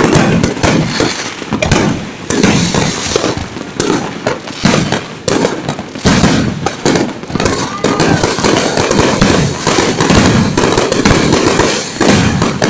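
Fireworks going off in a rapid, unbroken barrage of bangs and crackles.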